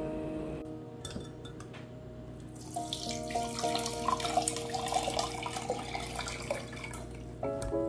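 Violet syrup poured from a glass jar through a fine-mesh strainer, trickling and splashing into a glass measuring jug, starting about three seconds in after a few light knocks.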